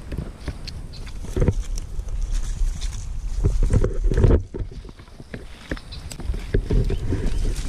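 Low wind rumble on the microphone with irregular rustling and handling knocks, loudest in a burst about four seconds in.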